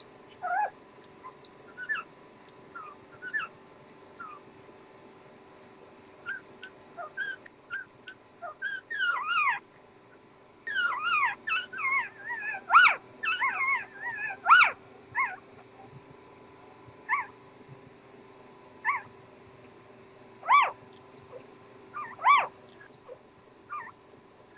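Newborn puppies squeaking and whimpering while nursing: short high squeaks, scattered at first, coming thick and fast in the middle, then single cries a couple of seconds apart near the end.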